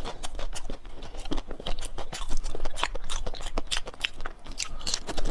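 Crunching bites and chewing of frozen ice pops, in quick, irregular crunches.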